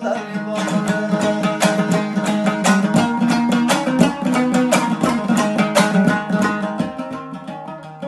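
Dambura, the Afghan long-necked lute, strummed fast and steadily in an instrumental break of a folk song, its melody notes ringing over the dense strokes.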